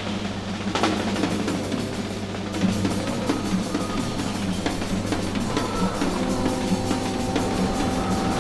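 Instrumental rock music with a drum kit playing busily on snare and bass drum over a steady low bass note. Held higher tones come in about six seconds in.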